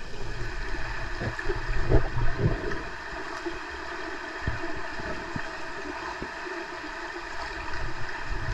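Underwater sound picked up by a camera submerged in a pool during an underwater hockey game: a steady muffled rush of water, with a few low thumps about two seconds in and scattered faint clicks.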